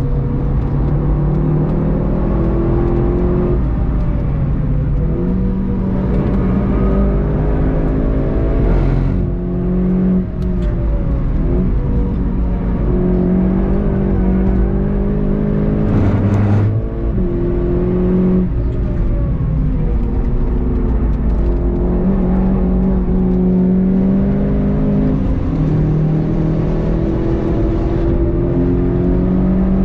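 Onboard sound of a VW Golf 7.5 GTI TCR's turbocharged four-cylinder engine driven hard at track speed, its pitch changing in steps as the driver works through the gears, over steady tyre and road noise.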